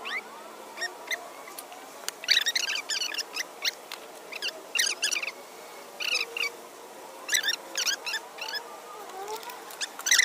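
Small birds chirping in quick clusters of short, high chirps, on and off throughout.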